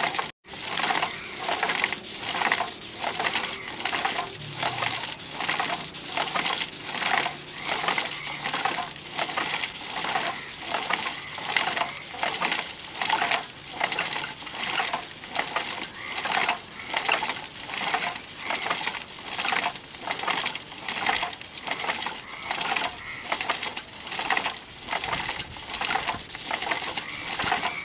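Abrasive pad rasping against a black lacquered vessel spinning on a hand-driven wooden lathe: an even, rhythmic hiss that swells about three times every two seconds as the lathe turns, smoothing a coat of lacquer.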